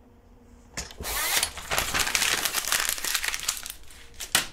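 Loud, close rustling and crackling handling noise from a person getting up out of a desk chair, starting about a second in, with a sharp knock near the end.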